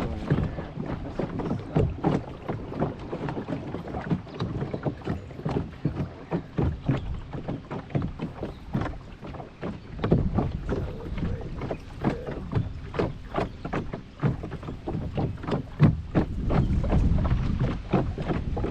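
Wind buffeting the microphone while small waves slap against a boat's hull in an uneven run of short splashy knocks.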